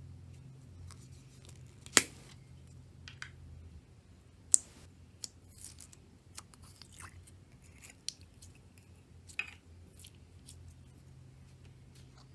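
Slime or stress balls being handled, giving a scattered series of short, sharp clicks and snaps, the loudest about two seconds in and another about four and a half seconds in.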